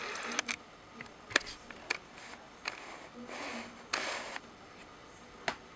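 Faint, scattered single clicks, about eight spread unevenly, with short patches of soft rustling in between: a computer mouse being clicked and a handheld tablet being handled while moving through Windows settings.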